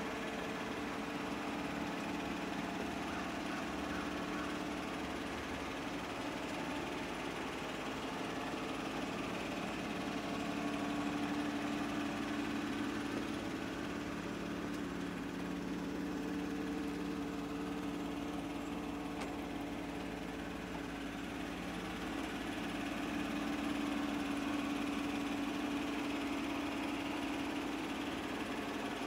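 A 2014 Chevrolet Silverado 1500's V6 engine idling steadily.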